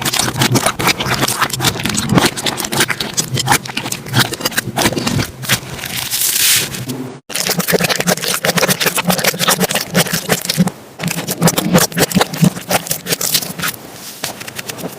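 Slime being squeezed, stretched and poked by hand, giving dense crackling clicks and small pops. The sound breaks off briefly about seven seconds in and resumes.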